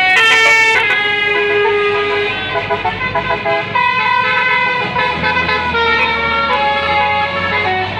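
Basuri musical air horn on a bus playing a tune: a run of held horn notes, one after another at changing pitch, with a vehicle engine running underneath.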